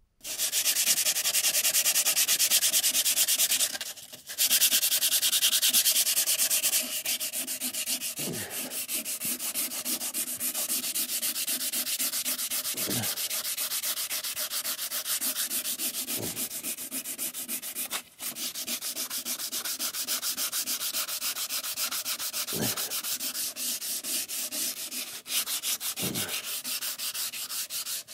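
Coarse 60-grit sandpaper rubbed by hand in fast back-and-forth strokes over the old wooden top of a drawer: a steady scratchy scraping, louder for the first few seconds, with two brief pauses, one about four seconds in and one near the middle.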